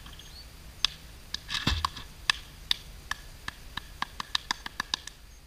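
One person clapping their hands, single sharp claps that come faster and faster toward the end. About a second and a half in there is a short rustle and a soft thud, as papers and a folder drop onto grass.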